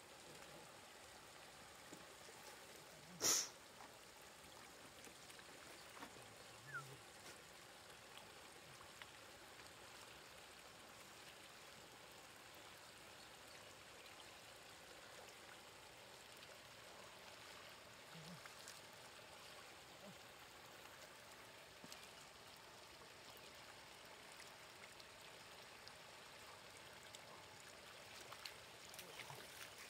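Faint steady trickle of shallow floodwater running over the ground, with one sharp, brief noise about three seconds in and a few faint knocks later as hands work in the water.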